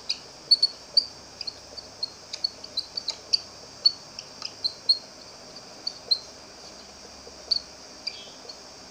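Felt-tip marker squeaking in short, irregular chirps as it writes across a whiteboard, with a few sharp taps of the tip, over a steady high-pitched background hiss.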